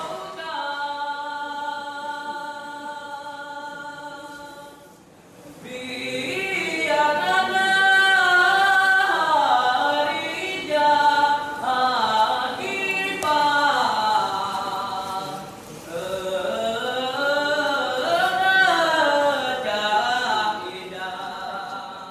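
Voices singing unaccompanied in a chant-like style: a long held note for about five seconds, then a melody in rising and falling phrases.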